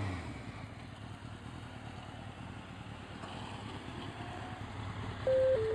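Suzuki GSX motorcycle engine dropping back from a rev and running steadily at low revs. Near the end come three short beeps, each lower than the last.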